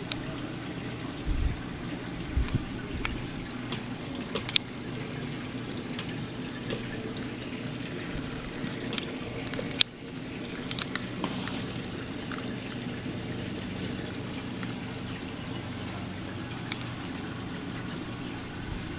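Reef aquarium's circulating water: a steady trickling rush. A few sharp clicks come through it, the loudest about ten seconds in, with two low bumps near the start.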